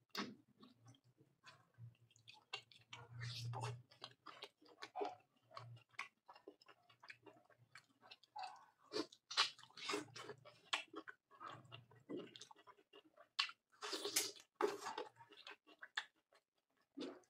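Close-miked eating of mutton curry by hand: chewing and wet mouth sounds with many quick sharp smacks and clicks, biting into a bone-in piece of mutton.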